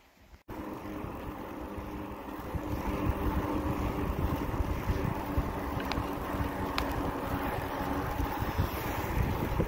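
Wind rushing over the microphone of a moving e-bike on pavement, with a steady low hum from the Riese & Müller Delite GT underneath. It starts abruptly about half a second in.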